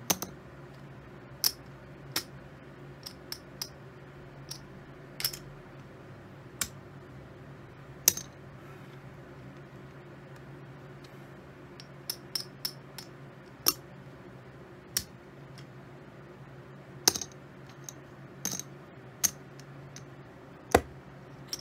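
Poker chips clicking against one another as they are handled and stacked, in scattered sharp clicks with a lull of a few seconds in the middle, over a steady low hum.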